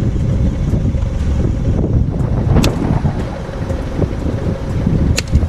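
Wind buffeting the microphone with a steady low rumble. A sharp click comes about two and a half seconds in and another near the end, as a plastic pry tool works at the clips of a BMW 1 Series side mirror cap.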